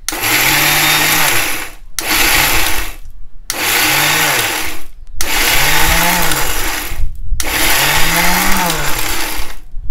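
Electric mixer grinder with a steel jar, run in five short pulses, its motor spinning up and winding down each time: soaked rice and urad dal being ground into a coarse batter.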